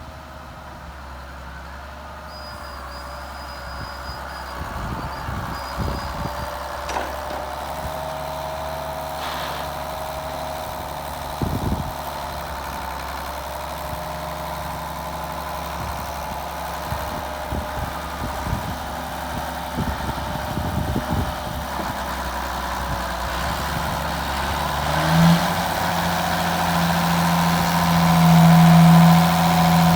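Ford TW-15 tractor's six-cylinder diesel engine running steadily under load while pulling a four-furrow plough, growing louder toward the end, with a few short knocks along the way.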